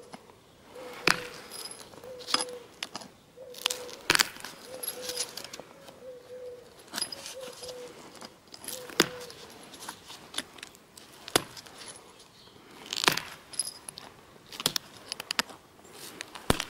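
Flint being knapped into a Clovis point: a dozen or so sharp clinks as flakes are struck or pressed off, coming one at a time at irregular intervals with short pauses between.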